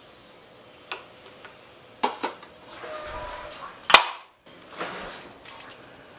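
Light metallic clicks and taps from miniature metal kitchenware, a tiny kettle and pan being handled: a few scattered ticks, the sharpest just before four seconds in, cut short by a brief dead gap.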